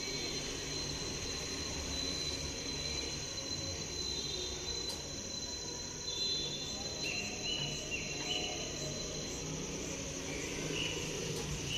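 Steady high-pitched insect chirring, with a few brief faint chirps here and there.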